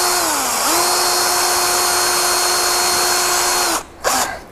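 Cordless drill spinning a 1-inch hole saw against steel angle iron. Its motor whine sags briefly under load about half a second in, holds steady for about three seconds, then stops, with a short burst just after. The hole saw is dull as hell and is barely cutting.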